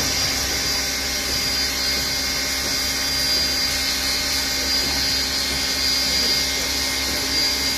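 Steam locomotive 3801 hissing steadily as steam escapes around its cylinders and front end, an even hiss with a steady whine running through it.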